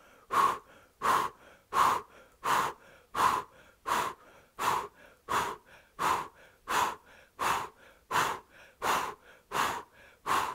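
A woman's powerful rhythmic breathing through an O-shaped mouth, forceful breaths pushed from the navel, about three every two seconds at an even pace.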